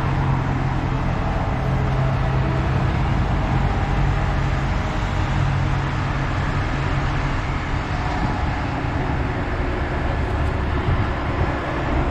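Heavy equipment engine running steadily at constant speed with a low hum, while a load is lowered.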